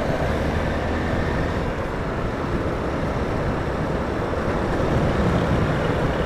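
Motorcycle cruising at a steady speed in traffic: the engine holds an even pitch under a constant rush of road noise.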